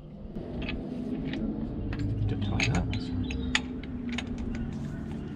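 Light, irregular metallic clinks and clicks from tools and suspension parts being handled around a vehicle's front wheel hub, over a steady low hum.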